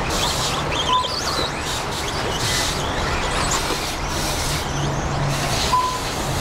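Electric 1/10-scale RC stadium trucks racing on a dirt track, their motors whining up and down as they accelerate and brake. A short electronic beep sounds about a second in and again near the end.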